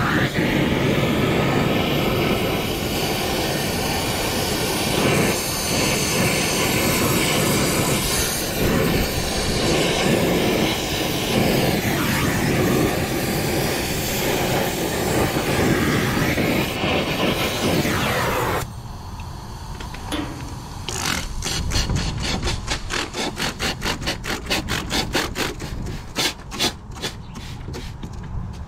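Oxy-acetylene torch flame hissing steadily while brazing a 3/8-inch copper refrigerant line. It cuts off abruptly about two-thirds of the way through as the torch is shut off. Near the end comes a quick run of short squirts from a spray bottle, about three a second, cooling the hot joint.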